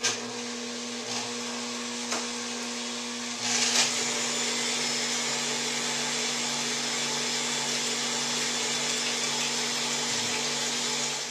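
Countertop stand mixer's electric motor running steadily as it mixes a lemon-sugar syrup while half-and-half is poured in. About four seconds in there is a brief swish, after which the mixer runs somewhat louder with a deeper hum added.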